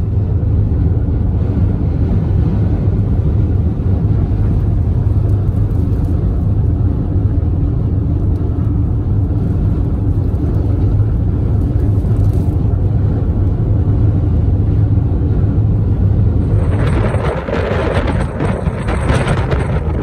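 Steady low rumble of road noise inside a moving car driving on a highway. About seventeen seconds in it gives way to strong wind blowing on the microphone, with surf washing on the shore.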